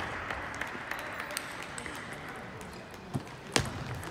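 Table tennis rally: the celluloid-type ball clicking off the bats and the table, with the two loudest knocks just after three seconds in and about half a second later. Fainter clicks and steady hall noise run underneath.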